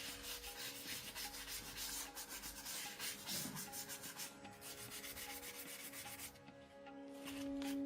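Hand sanding of a motorcycle part: hissing abrasive strokes in stretches of a second or more, pausing briefly a few times.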